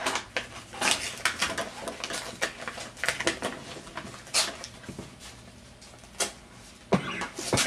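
Paper crinkling and tearing in short, irregular rustles as a greeting-card envelope is pulled open by hand, with a louder crackle near the end.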